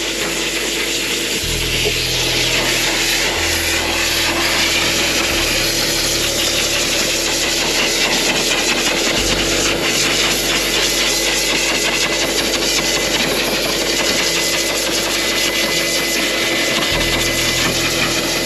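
Pet blower (air gun) running steadily, a loud rush of air over a motor hum, blowing water out of a wet dog's coat.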